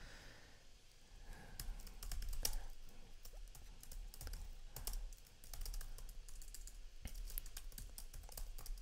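Typing on a computer keyboard: quick, irregular key clicks in short runs with pauses between.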